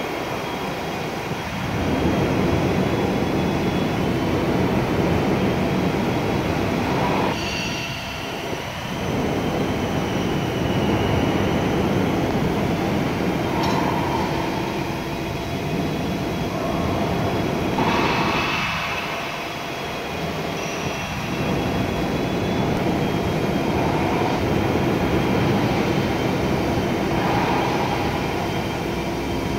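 Hydraulic oil pump of a valve test bench running steadily and loudly, with a few faint steady whining tones. The noise dips and changes briefly twice, about eight seconds in and again near twenty seconds.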